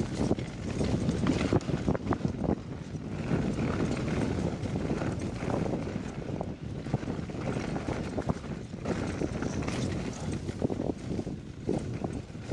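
E-mountain bike riding fast over a rough, rutted dirt track: tyres rumbling over the ground with a constant run of rattles and knocks from the bike.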